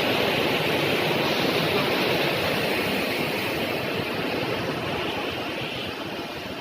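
Waterfall's falling water rushing steadily, growing slightly fainter toward the end.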